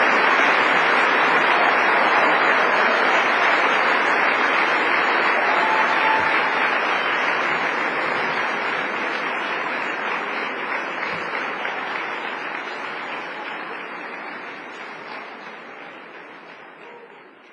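Large audience applauding steadily, fading gradually away over the second half.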